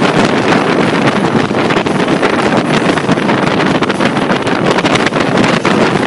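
Loud, steady wind rushing over the microphone of a camera moving at road speed, covering any engine sound.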